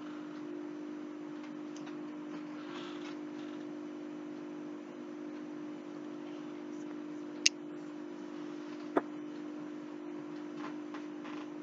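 Two short, sharp clicks of a small metal hand tool, about a second and a half apart, with faint handling rustles over a steady low hum.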